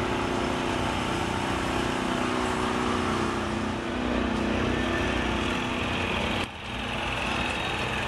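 An engine running steadily, heard over general open-air background noise; the sound drops briefly about six and a half seconds in.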